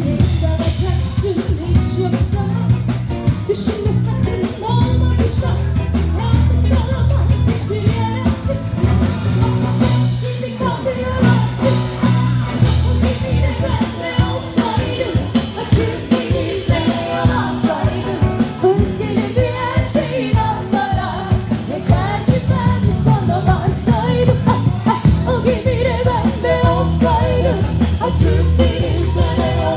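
Live band playing a song: singing over bass guitar, electric guitar and a drum kit.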